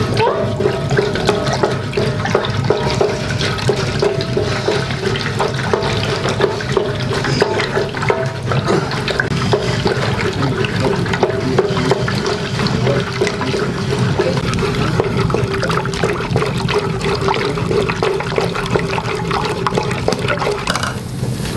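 A long wooden stick stirring a thin, milky liquid in a large aluminium pot, giving a continuous churning slosh with many small scrapes and knocks against the pot.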